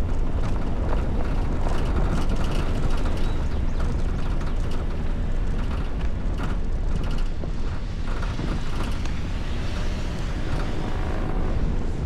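Toyota Veloz driving over a rough dirt track, heard from its roof: a steady low rumble of tyres on dirt and wind buffeting the microphone, with scattered knocks and clicks of stones and bumps.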